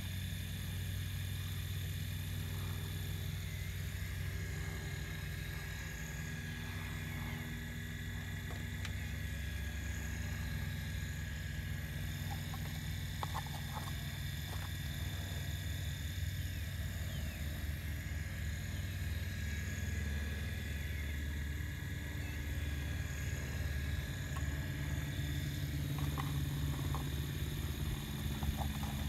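Radio-controlled Cat excavator running with a steady low mechanical hum and a thin high whine as it works its boom and bucket, with a few faint clicks around the middle and near the end.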